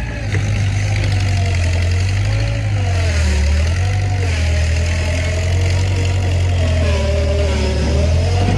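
A machine's engine running steadily, its low hum constant while higher tones waver up and down in pitch as the engine is worked.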